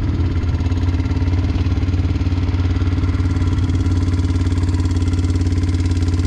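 ATV engine running steadily close by, holding one even pitch with a fast regular beat.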